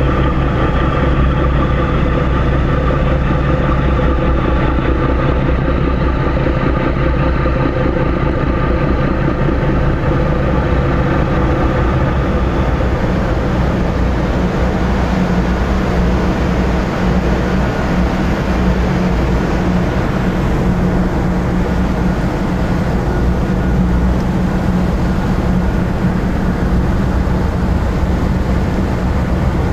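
Car ferry's engines and propellers running with a steady, many-toned drone as the ship manoeuvres alongside the quay to berth. A deeper hum grows stronger about halfway through.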